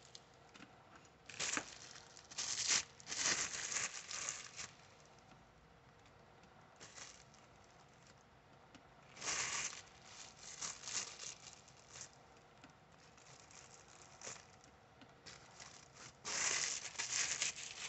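Plastic crinkling and rustling in several short bursts with quiet gaps between, as cold porcelain (air-dry modelling clay) is taken out and handled for the elephant's body.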